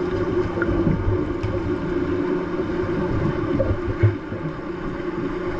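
Underwater pool ambience picked up by a submerged camera: a steady low rumble and hum with faint clicks, and one short knock about four seconds in.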